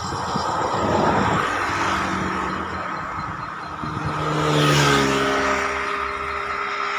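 Roadside traffic noise. A heavy vehicle passes close by about four and a half seconds in, loudest as it goes past, with its engine note dropping in pitch.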